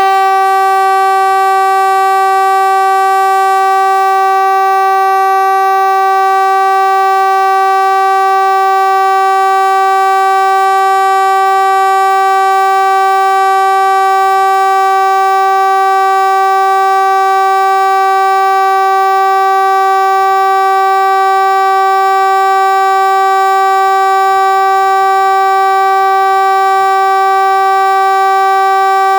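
Kockums Supertyfon TA 75/380 pneumatic civil-defence warning horn ('Hesa Fredrik') sounding one long, loud, unbroken tone at a steady pitch of about 380 Hz, rich in overtones. It starts abruptly and holds without wavering for almost thirty seconds.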